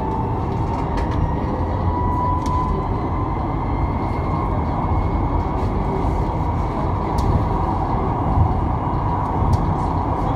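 Ui LRT UL000-series light-rail train running through a tunnel, heard from inside: a steady rumble of steel wheels on the rails with a motor whine that rises a little over the first couple of seconds and then holds, and a few faint ticks.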